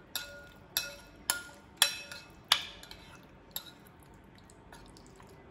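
A metal spoon clinking against a glass bowl while stirring raw chicken pieces into a marinade: about six sharp clinks, each ringing briefly, at uneven intervals, then quieter stirring near the end.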